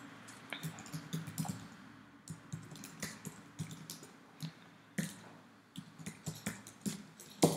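Typing on a computer keyboard: irregular single keystrokes, with one louder click near the end.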